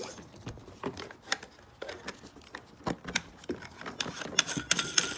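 Handling noise from a plastic desk power grommet and its power cord being fed through a hole in a sofa's center console: irregular light clicks, taps and scrapes, growing busier near the end with a rustling hiss.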